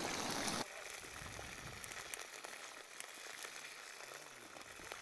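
Faint sizzling of food cooking, with many small scattered crackles. A louder sound cuts off abruptly about half a second in.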